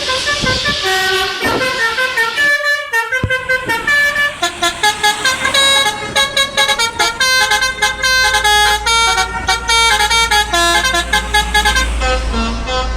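Telolet bus horn: a multi-tone musical horn playing quick runs of short notes that step up and down like a tune, with a brief break about two and a half seconds in. A low rumble runs under it through the second half.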